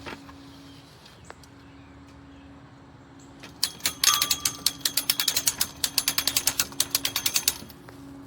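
Patio umbrella crank ratcheting as it is wound: a fast, even run of metallic clicks, about eight a second, starting about three and a half seconds in and stopping about four seconds later.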